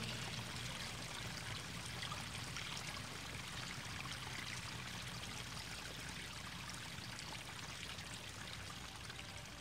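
Steady sound of running water, like a flowing stream, slowly fading.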